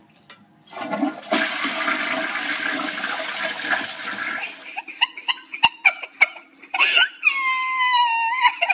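Toilet flushing: a rush of water for about four seconds, then uneven gurgling with a few sharp clicks as it drains. A high wavering tone comes in near the end.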